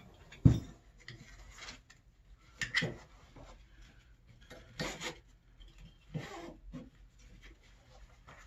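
A nylon webbing waist belt and its plastic buckle being handled, giving several short rustling, rubbing scrapes a second or two apart. A single heavy thud comes about half a second in, the loudest sound.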